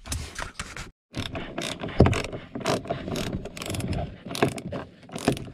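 Socket ratchet clicking in quick runs as it undoes a 17 mm seatbelt anchor bolt in the car floor, with one louder knock about two seconds in.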